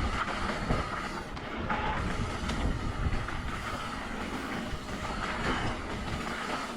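Mountain bike rolling fast down a dirt trail: tyres on the ground, the bike rattling over bumps, and wind rumbling on the microphone.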